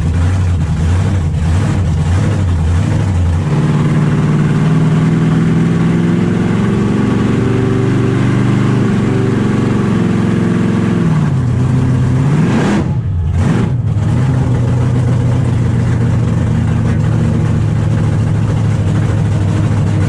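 The Warbird's 1,700 hp supercharged burnout-car engine running loud while driving, heard from inside the cab. Its note steps up a few seconds in, sags and drops around eleven seconds, swings back up sharply a second or so later, then holds steady.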